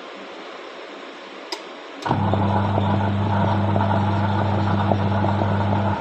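Intex 6.2 kg washing machine's wash motor switching on after a short click and running with a loud steady hum for about four seconds, turning the pulsator in the empty tub, then stopping. This is a run in the wash cycle driven by a newly fitted 15-minute wash timer.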